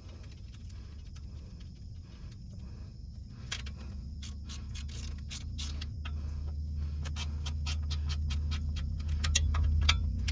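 Ratchet wrench clicking in short, irregular runs as the 10 mm transmission pan bolts are backed off. A low rumble under it grows steadily louder toward the end.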